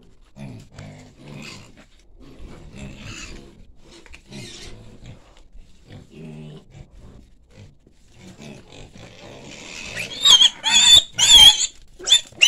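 Young pig grunting in short repeated bursts, then from about ten seconds in squealing loudly and high-pitched as it is grabbed and held.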